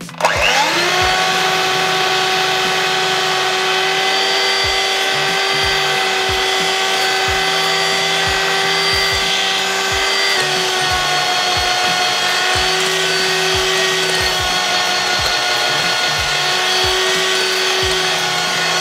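Electric hand mixer switched on and quickly spinning up to a steady motor whine, its twin beaters whipping eggs and sugar in a glass bowl.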